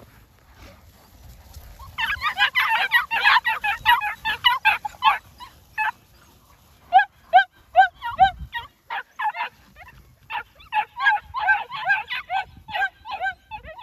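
New Zealand Huntaway puppies yapping in high-pitched yips as they chase sheep. Several bark at once in a quick jumble from about two seconds in, then single yips come two or three a second, and the jumble returns near the end.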